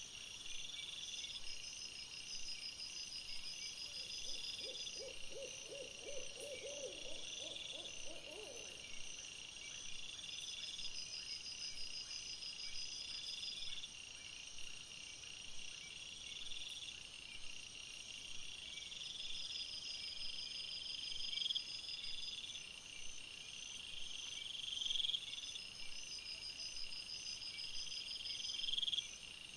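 Night insects chirping steadily in repeated high bursts. About four seconds in, a rapid run of low hoots from an unseen animal comes about four times a second, rising slightly, and stops after about four seconds.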